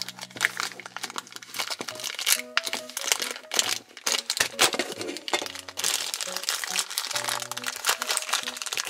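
Shiny pink plastic wrapper crinkling and rustling as it is pulled out of a toy pet carrier and unwrapped by hand, over background music.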